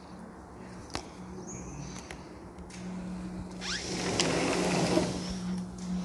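An electric motor whirring up with a rising whine about three and a half seconds in, running loudest for a second or so and then dying away, over a low steady hum.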